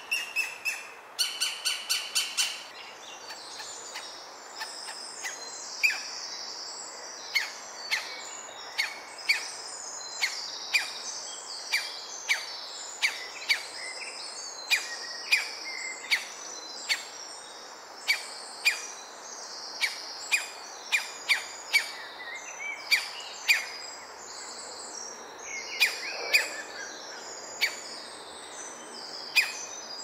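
Green woodpecker chicks calling from the nest hole: sharp, harsh calls repeated over and over, a quick run of them at first and then about one a second. Other songbirds sing behind them.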